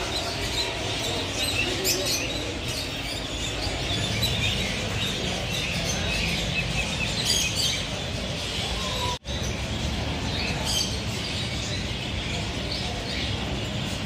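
Many caged small parrots, budgerigars and lovebirds, chirping and chattering together over a steady low background noise. The sound cuts out for an instant about nine seconds in.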